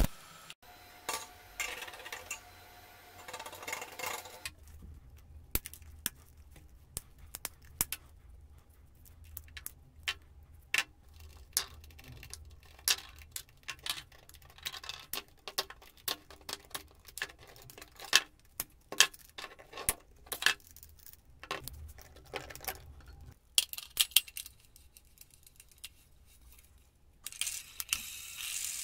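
Scattered clicks, taps and clinks of small metal parts and tools being handled on a workbench while an angle grinder is taken apart and fitted. A short stretch of steady hiss comes near the end.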